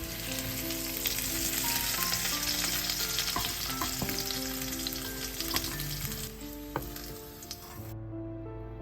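Hot oil sizzling in a kadai as whole spices and chopped garlic fry, with a few sharp clicks of stirring. The sizzle cuts off about eight seconds in.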